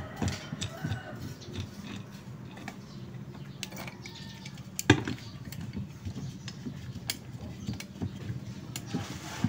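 Scattered small clicks and clinks of metal pliers against the nut and the plastic pulley as the pulley is fitted onto a washing machine's gearbox shaft and tightened, with one sharp click about five seconds in.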